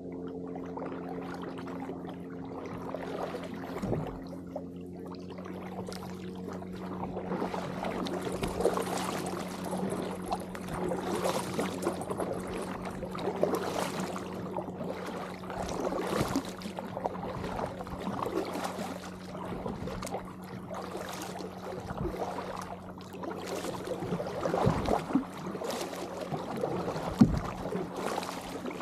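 Kayak paddle strokes: the blades of a double-bladed paddle dipping into the water on alternating sides, with irregular splashing and water trickling off the blades. A steady low hum sits underneath.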